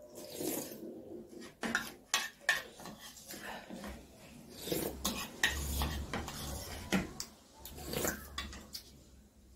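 Metal spoon clinking and scraping against a ceramic bowl in irregular taps while soupy food is eaten, with slurps and mouth sounds between the clinks.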